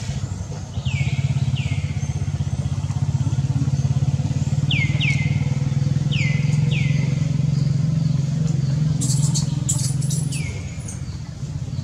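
An engine runs steadily with a low, fast-pulsing hum and dips briefly near the end. Over it come short high calls that fall in pitch, mostly in pairs, several times, and a short burst of clicks about nine seconds in.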